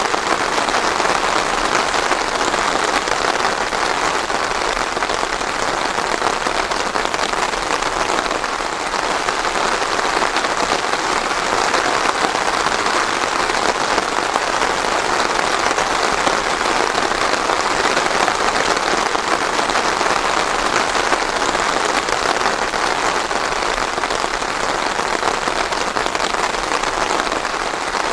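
Steady rain falling and pattering on a surface, with no thunder.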